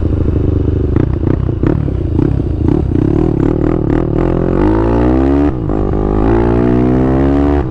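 Single-cylinder engine of a Honda CG 160 Start built out to 410 cc with a carburettor, heard from the rider's seat. For the first four seconds it runs unevenly at low revs, with sharp pops. It then accelerates hard with rising pitch, dips at a gear change about five and a half seconds in, and climbs again.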